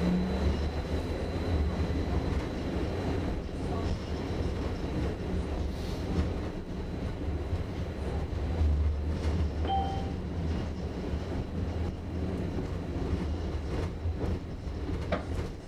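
Cabin of an A32 light-rail tram running along the track: a steady low rumble of wheels and running gear. A faint high steady tone fades out in the first few seconds, and a brief beep sounds near the middle.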